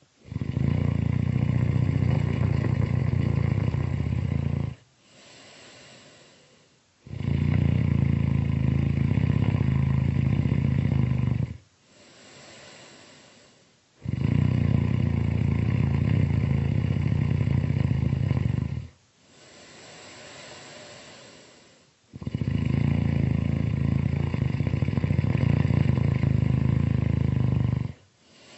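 Loud snoring: four long snores of about four to five seconds each, with a quieter, breathy sound between them, repeating about every seven seconds.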